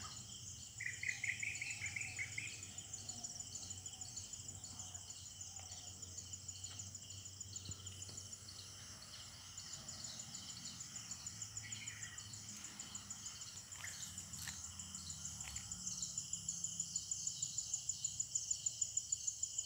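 Forest insect chorus: a steady, high, rapidly pulsing trill that grows louder toward the end. A short run of quick bird notes about a second in and a few brief bird calls later.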